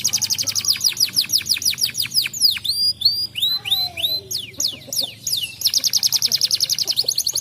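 Domestic canary singing in rolling tours: a fast trill of repeated notes, changing in the middle to slower sweeping, slurred notes, then a fast, even trill again in the last couple of seconds.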